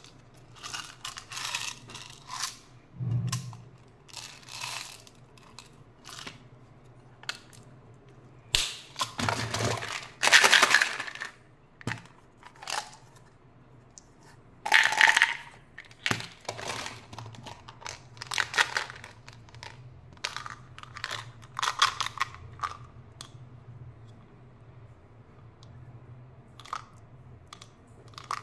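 Small hard candies and mints rattling and clicking as they are shaken and poured from plastic containers into a palm, with plastic lids snapping and packaging crinkling. A series of separate clicks and rattles with a few louder, longer rattling bursts.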